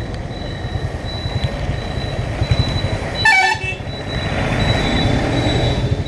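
Motorcycle riding noise, a steady rumble of wind and engine, with a vehicle horn honking once, briefly, a little over three seconds in.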